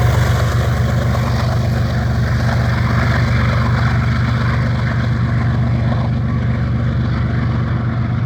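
BNSF empty coal train passing, a steady, loud low rumble.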